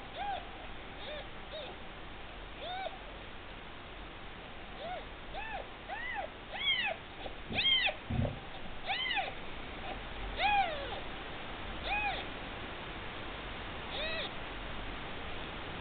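A newborn, two-day-old orphan kitten mewing over and over in short, high cries that rise and fall, up to a couple a second and loudest midway. It is crying to be fed as the nursing bottle is brought to its mouth.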